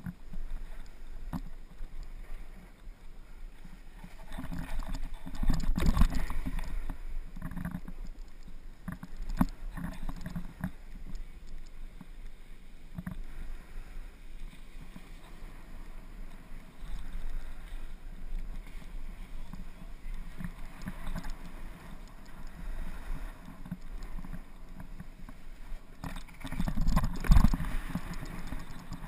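Skiing or snowboarding down packed snow: a steady scraping and swishing of edges over the snow, with wind rumbling on the helmet-mounted microphone. The sound swells louder about five to seven seconds in and again near the end.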